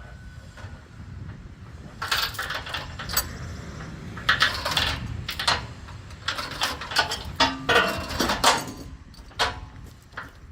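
Steel tie-down chains clanking and rattling in a string of irregular metallic clashes, starting about two seconds in and dying away near the end, over a low steady rumble.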